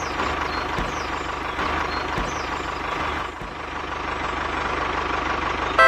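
Tractor engine running steadily, with a fast, even low pulse. A horn begins to toot right at the end.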